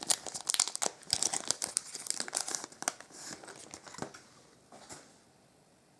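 Foil wrapper of a Topps Chrome trading-card pack being torn open and crinkled by hand: a dense crackling for about three seconds that thins to a few light clicks and then stops.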